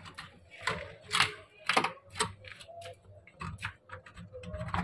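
A thin wire scraping and clicking against an aluminium window frame as it is worked into the gap to open the shut window. The clicks come irregularly, with the sharpest ones about a second in and just before two seconds.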